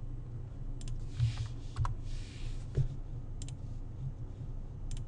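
Computer mouse clicks: several separate sharp clicks, a couple of them in quick pairs, with two short soft rushes of noise in between.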